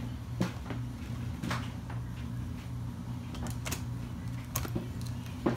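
Scattered plastic clicks and taps as an HP Pavilion DV7 laptop's replacement keyboard is pressed down and shifted in its palm-rest frame, over a steady low hum.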